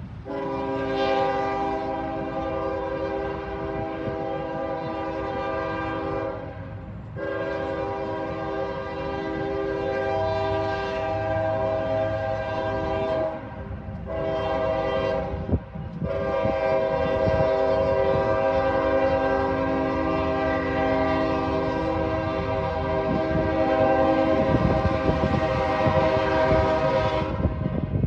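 Union Pacific GE AC45CCTE (ES44AC Gevo) locomotive's multi-note air horn sounding the grade-crossing warning: two long blasts, one short one, then a final long blast held for about eleven seconds as the train reaches the crossing.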